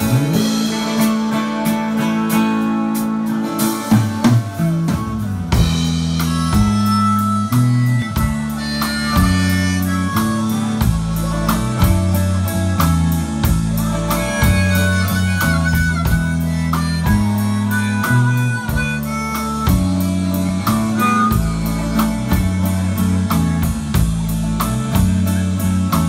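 Live rock band playing the song's instrumental intro: electric guitar alone at first, with bass guitar and drums coming in about four or five seconds in. A harmonica plays over the band.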